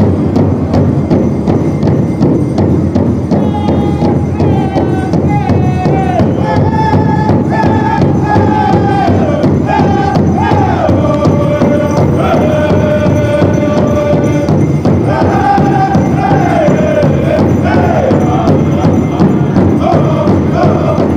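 Pow wow drum group: a large drum beaten in a steady beat, joined about three and a half seconds in by men singing high-pitched chant phrases that step down in pitch.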